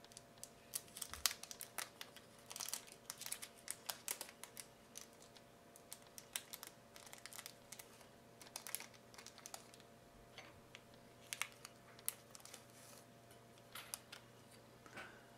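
Faint, irregular crinkling and light clicks of packaging being opened and handled by hand to take out a thin photo-etched metal fret, which is set down on the work surface.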